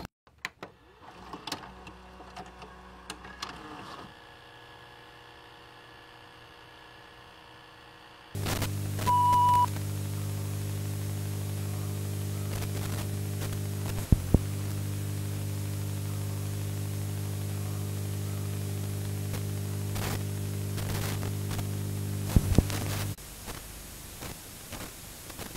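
Glitch and static sound effects. It opens with scattered crackles and clicks. About eight seconds in, a steady electrical hum with hiss starts, and a short high beep comes a second later. A few sharp clicks follow, and the hum cuts off suddenly near the end.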